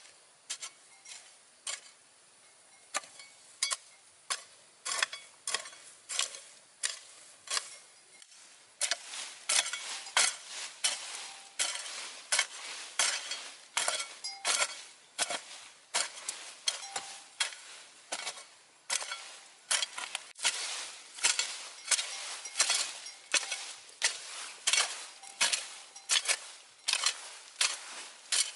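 A steady run of sharp knocks or taps, about two a second, louder from about nine seconds in.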